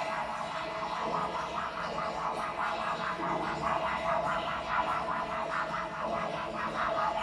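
Scored soundtrack: a steady droning tone under a rapid, even, scratchy pulsing texture.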